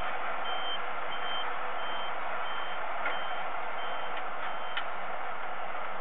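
A high, short electronic beep repeating evenly about one and a half times a second, the pattern of a vehicle's reversing alarm, over a steady hiss; the beeping stops about five seconds in. A few faint clicks come in the second half.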